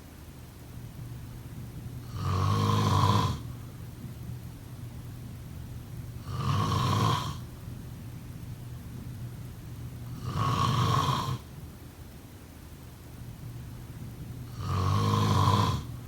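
A sleeping person snoring in a slow, even rhythm: four snores about four seconds apart, each lasting about a second, with a low buzz.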